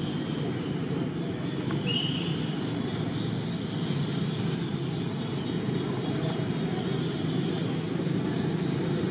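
Steady low outdoor background rumble, with a single short high-pitched chirp about two seconds in.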